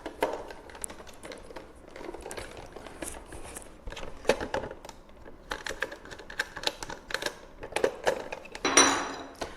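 Irregular clicks and taps of a plastic ABS burger press being handled, its parts knocking together and against the table.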